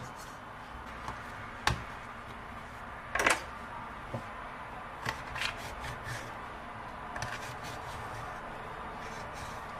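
Kitchen handling sounds: a few sharp clicks and knocks and one louder brief scrape about three seconds in, as boiled cabbage leaves are handled and a knife trims a leaf's thick rib on a wooden cutting board, over a steady low hiss.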